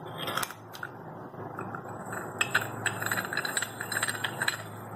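Brass chakli press being closed, its threaded top screwed on: metal-on-metal scraping and a run of small clicks, a few early on and many in quick succession in the second half.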